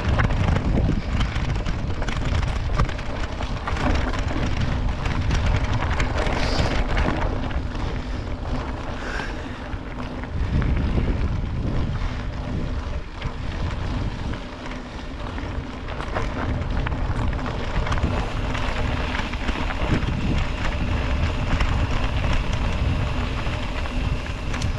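Continuous wind buffeting on an action-camera microphone, with the rumble and rattle of a mountain bike rolling over a dirt trail.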